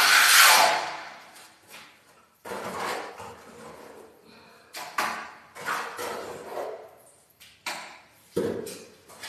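Wet finishing mortar being pressed and scraped onto a wall, a loud rough scrape that fades within about a second. Then a trowel scraping and knocking in a plastic bucket of mortar, several short strokes with pauses.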